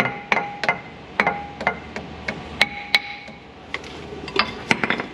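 Hammer strikes driving a serpentine belt onto the crankshaft balancer pulley of a CAT 3126 diesel, about three taps a second at an uneven pace. Some blows leave a short metallic ring.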